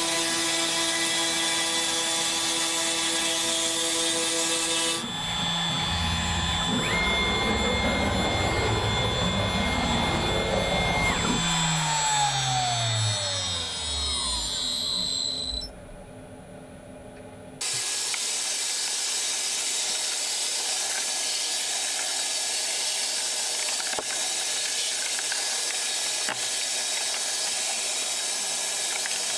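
A CNC router's spindle, turning a 32 mm two-flute surface-planing cutter, cuts MDF for the first few seconds. The cut ends about five seconds in, and the spindle winds down with a falling whine over several seconds. After a short quieter spell, a vacuum hose starts and runs steadily with a hiss as it sucks MDF dust off the bed.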